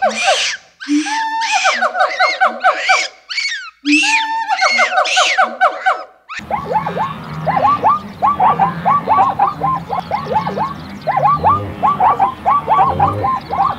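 Baboon calls repeated in a loop, each a short held note followed by a quick run of chattering notes, heard three times. About six seconds in they give way to a zebra's rapid series of short yelping barks.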